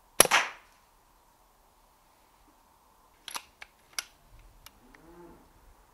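A Brocock Concept XR PCP air rifle fires once, a sharp, short, moderated crack. About three seconds later come a few short metallic clicks as the action is worked to load the next pellet.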